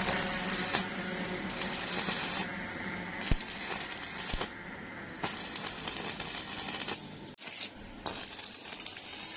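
A few sharp metal clinks and taps, spaced a second or more apart, the loudest about three seconds in, as steel pieces are handled in a welding workshop. A low hum dies away over the first few seconds.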